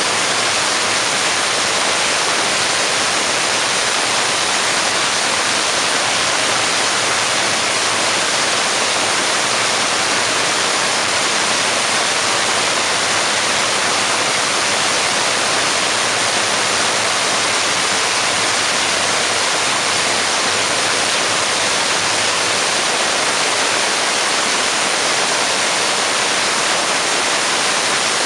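Steady, unchanging hiss with no rhythm or breaks.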